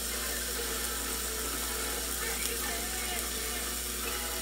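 Ground bison burger patties sizzling steadily on a George Foreman electric grill.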